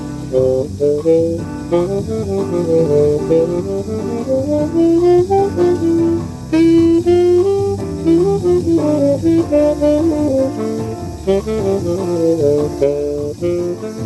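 Tenor saxophone playing a jazz samba line of quick running notes over a backing accompaniment.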